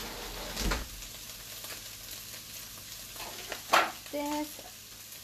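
Ground meat and onion sizzling steadily in a nonstick frying pan while a spatula stirs and chops through it. Two sharp knocks of the spatula on the pan, the louder one near four seconds in.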